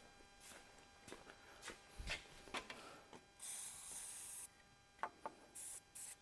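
Aerosol can of penetrating oil spraying onto seized bolts: one hiss of about a second, then short bursts near the end, amid light clicks and knocks of metal handling.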